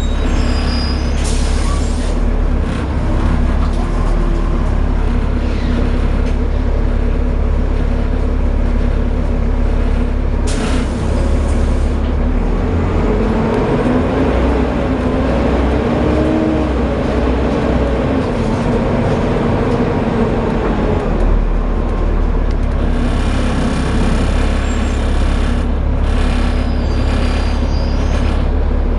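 Volvo B7TL double-deck bus's seven-litre six-cylinder diesel running with a heavy low rumble, its pitch rising and falling through the middle as it pulls away and changes gear. A short hiss, typical of an air brake, comes about ten seconds in.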